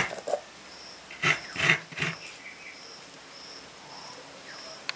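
A dog barking three times in quick succession a little over a second in, over a high chirp that repeats about every half second.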